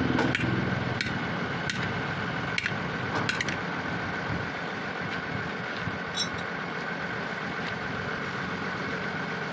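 A hammer knocking on the steel rim of a deflated truck tyre, working the tyre bead loose: about six sharp metallic knocks in the first three and a half seconds, then they stop. A steady engine hum runs underneath.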